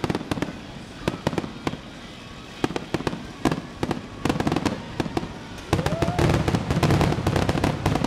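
Fireworks display: a run of sharp bangs and crackles that grows denser and louder about four seconds in, then from near six seconds a continuous barrage of booms over a deep rumble.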